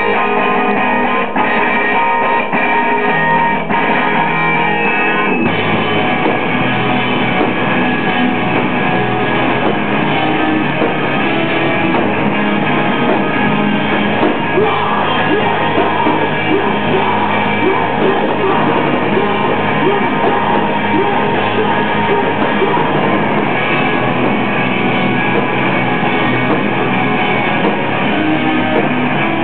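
Live rock band playing loudly: electric guitars and a drum kit, fuller and heavier in the low end from about five seconds in. Heard through a digital camera's microphone, so it sounds dull and lacks treble.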